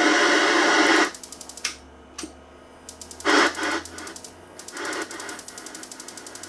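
CRT television being switched on at full power: a burst of rushing noise, then rapid electrical ticking at about ten ticks a second that stops and starts again and runs on, with a second rushing burst in between.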